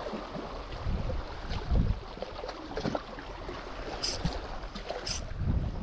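Sea water lapping against shoreline rocks, with wind buffeting the microphone in low gusts, the strongest about two seconds in. Two brief high hisses come about four and five seconds in.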